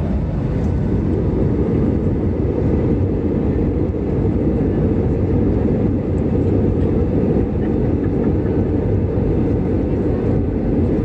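Jet airliner cabin noise: the engines and rushing air heard from a window seat as a steady low rumble.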